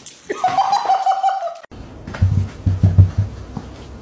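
People laughing: a high-pitched laugh for the first second and a half, then, after a sudden cut, a deeper laugh in short pulses.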